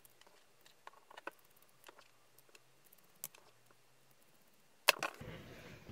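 Small screwdriver turning tiny screws into a radio kit's circuit boards: faint, scattered clicks and ticks of metal on metal, with one sharper click about five seconds in.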